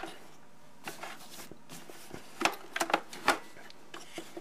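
A few light clicks and knocks as the Hoover Decade 80 vacuum is handled, most of them bunched together between about two and a half and three and a half seconds in.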